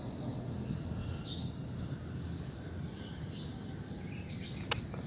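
Steady high-pitched chorus of crickets over a low outdoor rumble, with one sharp click near the end.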